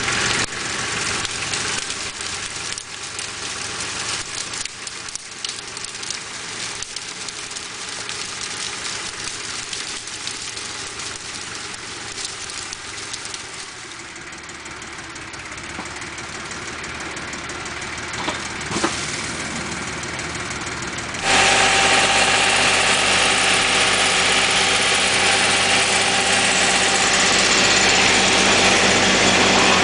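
Lenar FS 254 II compact tractor's diesel engine running, heard from some way off and slowly growing fainter. About two-thirds of the way in, it jumps abruptly to a much louder, steady running close up at the rear of the tractor, where it is coupled by PTO shaft to a woodchipper, with steady tones running through the sound.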